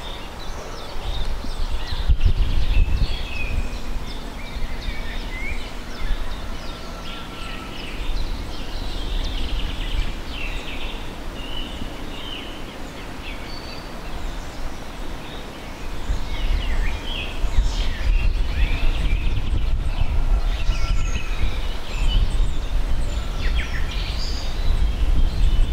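Several songbirds chirping and trilling over a low, uneven rumble that grows louder in the second half.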